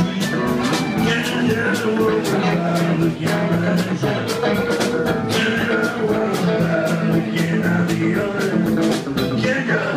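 Live band playing rock-style music: a drum kit with steady cymbal strokes over a walking upright double bass and electric guitars, with a bending melodic line on top.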